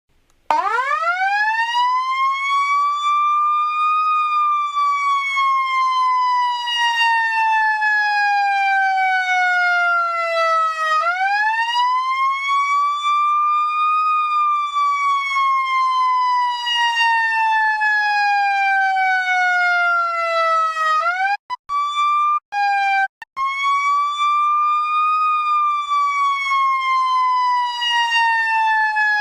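Federal Signal eQ2B electronic siren sounding a wail: pitch climbs over about three seconds, then falls slowly over about seven, in three cycles. It starts about half a second in and cuts out briefly a few times about two-thirds of the way through.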